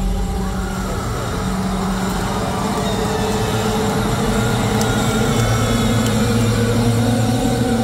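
A low, steady, sustained droning tone from the concert PA, a held keyboard or synth pad under the live show, with a faint wash of crowd noise behind it.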